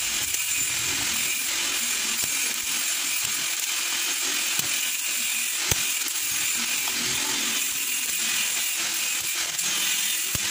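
A spring-loaded desoldering pump clicks sharply as it is cocked and fired, a few times, while solder is sucked off transistor joints on a circuit board. A steady hiss runs underneath.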